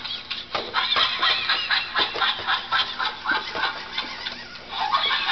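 Animated plush monkey toy playing recorded monkey calls through its small speaker: rapid, high chirping cries that go on without a break, easing off briefly about four seconds in and then picking up again.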